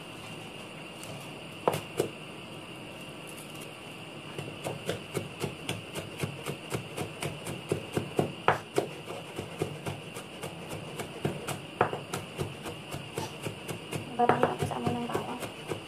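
Chinese cleaver chopping garlic on a wooden cutting board: sharp knocks, only a few at first, then a steady run of about three to four chops a second.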